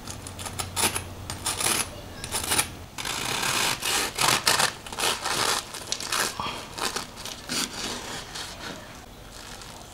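Serrated bread knife sawing back and forth through a milk bun's crisp vanilla-sugar crust: a dense run of crunching, crackling strokes that dies down near the end as the blade gets through.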